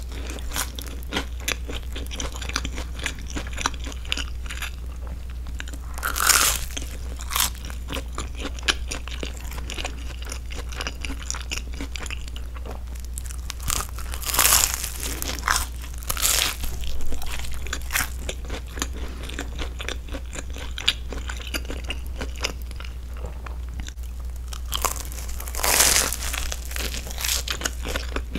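Close-miked biting and chewing of a grilled cheese sandwich, with the toasted crust crunching in many small crackles. Every few seconds comes a louder breath through the nose. A steady low hum runs underneath.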